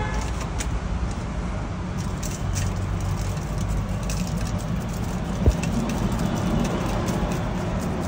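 Busy street background with a steady low traffic rumble, scattered small clicks and clinks, and one sharp knock about five and a half seconds in.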